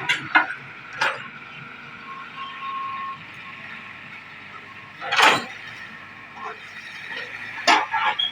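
Hydraulic excavator running steadily while dredging a ditch, with several sharp knocks, the loudest about five seconds in and another pair near the end.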